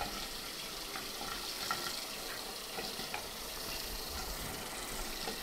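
Tap water running steadily into a bathroom sink, with a few faint small clicks.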